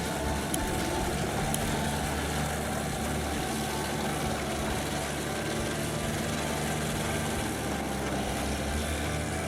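Large drum wood chipper running steadily under its diesel engine, an even mechanical hum.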